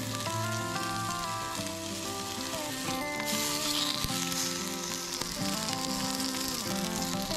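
Beef roast searing in oil in a hot cast iron Dutch oven over a campfire, a steady sizzle that grows louder about three seconds in as the tongs set the meat down on a new side. Background music plays along with it.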